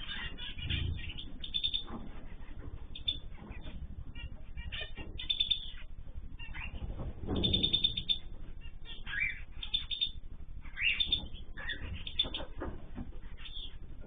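A flock of small cage birds chirping and calling in many short, overlapping notes, with a couple of low fluttering thumps about a second in and again about halfway through.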